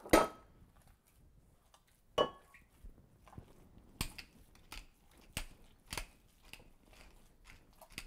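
Wooden pepper mill grinding over a bowl in a run of short crunchy twists, about one every two-thirds of a second in the second half, with hands squishing ground meat in a glass bowl. A few sharper knocks come in the first couple of seconds.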